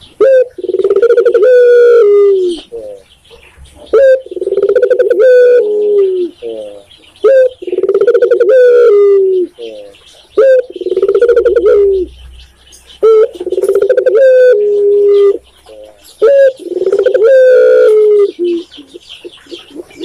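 A dove cooing in repeated phrases: about six phrases of linked coos, one roughly every three seconds, each phrase sliding down in pitch at its end.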